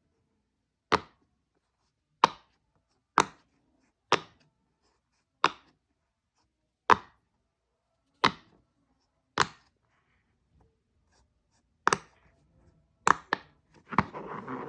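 Bubbles of a silicone pop-it fidget toy being pushed through one at a time, each giving a single sharp pop, about one a second and a dozen in all. Near the end a few pops come closer together, followed by a short rustle.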